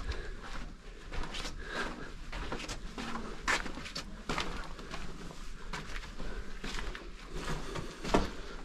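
Irregular footsteps and scuffing, with soft rustling and scattered sharp clicks.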